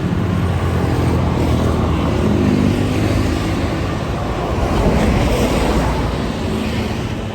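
Large bus running close by: a loud, steady engine rumble with road noise, swelling slightly about two and a half and five seconds in.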